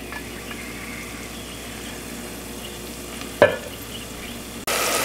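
Diced onions and garlic frying in oil in a clay pot, sizzling faintly at first, with a single knock about three and a half seconds in. Near the end the sizzling suddenly gets much louder and more crackly.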